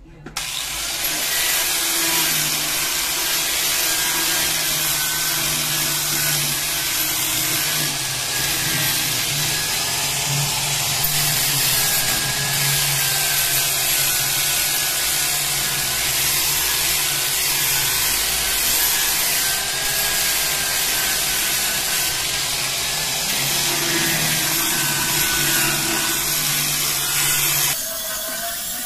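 Corded electric angle grinder starting up and running steadily as it sands and smooths the surface of rough wooden pallet planks, the tone wavering slightly as the disc is pressed and moved over the wood.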